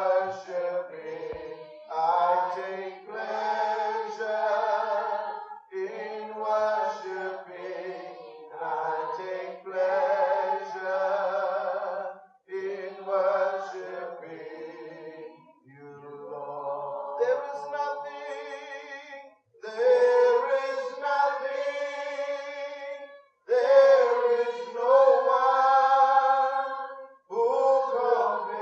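Worship singers singing a slow, unaccompanied worship song in long held phrases of a few seconds each, with short breaks between the phrases.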